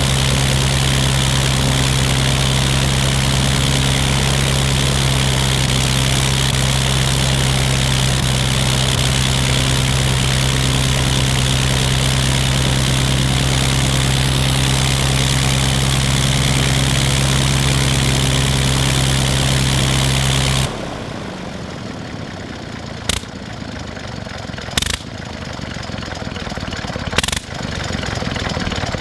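Seven-cylinder Gnome rotary aero engine running steadily and loud with its propeller turning. About two-thirds of the way through, the steady note drops suddenly to a quieter, rough, uneven running broken by several sharp pops.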